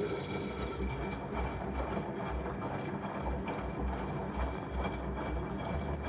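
LG WD-12380FBN front-loading washing machine tumbling a deep load of water: water sloshes and splashes in the turning drum over a pulsing low hum and a faint steady whine from the drum drive.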